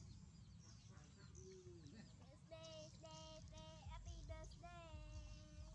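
Faint voice singing a run of short held notes at one pitch, then one longer note, starting about halfway in. High falling chirps at the start.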